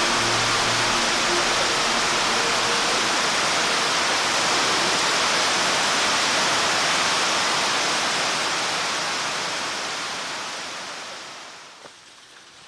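Waterfall, falling water making a steady, even rushing noise that fades out over the last two seconds or so.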